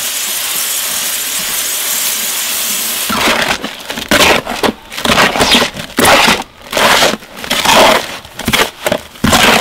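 Water sprayed onto a dry sand, trass-cement and lime mortar mix in a plastic mortar tub, a steady hiss for about three seconds. Then a trowel scrapes and turns the damp mortar in repeated strokes, about two a second, working it to an earth-moist consistency.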